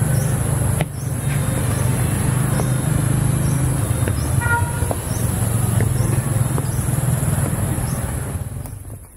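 Steady low rumble of a vehicle in motion, with a short toot about four and a half seconds in; the rumble falls away near the end as it comes to a stop.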